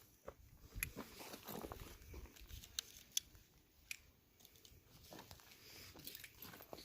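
Quiet handling noise: a few faint, sharp clicks and soft rustling, as cartridges and gear are handled.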